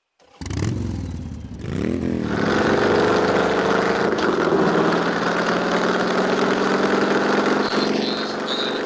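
A motor vehicle's engine starts, is revved up and down twice, then keeps running steadily at a raised speed.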